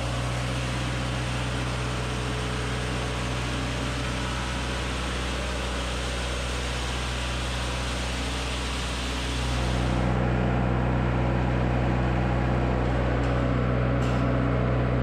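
A machine's engine running steadily under a rushing hiss. About nine to ten seconds in it grows louder and heavier while the high hiss falls away.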